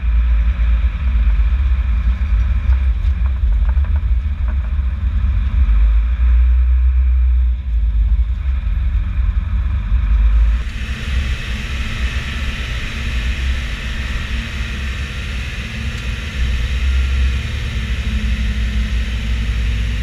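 Fendt 512 tractor engine running with a deep, steady rumble. About ten seconds in the sound changes: the low drone eases and a brighter hiss comes up.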